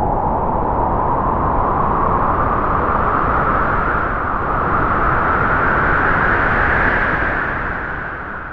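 A loud, steady rushing noise whose hiss rises slowly in pitch, then begins to fade near the end.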